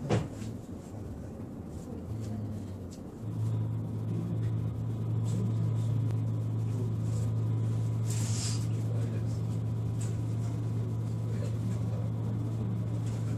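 E129 series electric train standing with its equipment running: a steady low electrical hum sets in about three seconds in and holds, with a brief hiss of air about eight seconds in.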